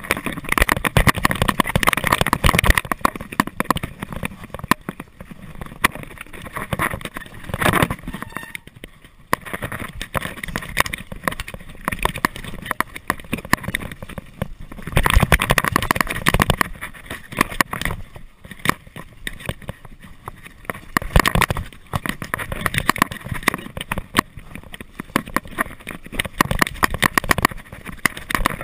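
Trek Cobia mountain bike ridden fast down a dirt forest trail: tyres rolling over the ground and the bike rattling and clattering over bumps, in dense clicks that come and go in rough patches. Wind rushes over the camera microphone.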